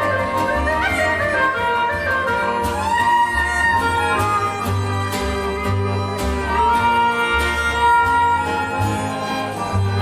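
Klezmer ensemble playing live: violin and clarinet over strummed acoustic guitar, accordion and a plucked double bass line.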